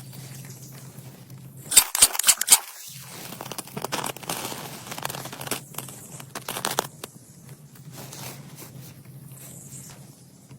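Dry plant material being handled: rustling and tearing, with a quick run of sharp snaps about two seconds in.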